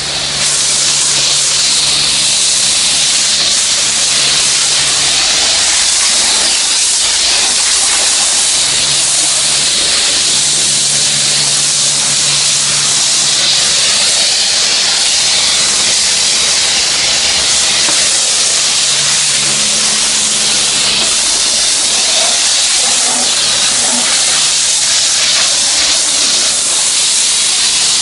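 A self-service car wash spray wand spraying the car at high pressure: a loud, steady hiss, with a low hum coming and going underneath.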